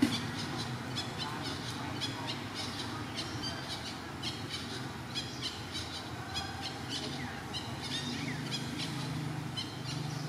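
Small birds chirping, quick clusters of short high calls repeating throughout. A sharp click right at the start, and a low engine hum comes in near the end.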